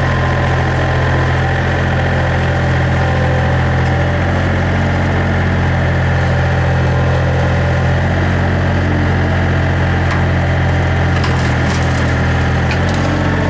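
Mustang skid steer's diesel engine running steadily, with a few sharp cracks near the end.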